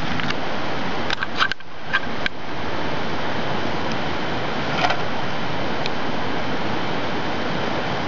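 Handheld camera being picked up and turned around: a few handling clicks and knocks, with the sound briefly muffled about a second and a half in, over a steady hiss.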